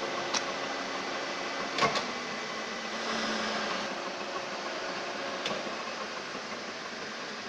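Milling machine running steadily, with a few sharp clicks, the loudest about two seconds in.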